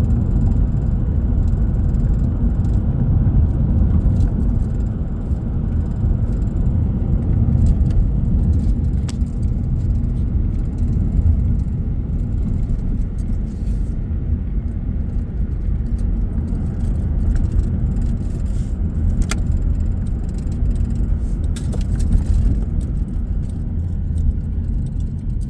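Steady low rumble of a car driving, tyre and engine noise heard from inside the cabin, with a few faint clicks.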